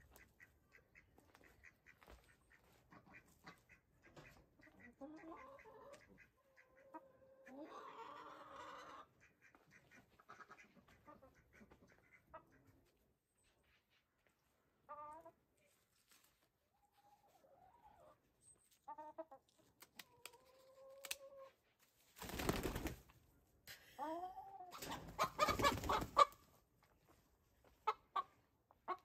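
Hens clucking and squawking as they are caught and held for wing clipping. The calls are scattered and short at first. About three-quarters of the way in come two loud bursts of squawking and scuffling, the loudest sound here.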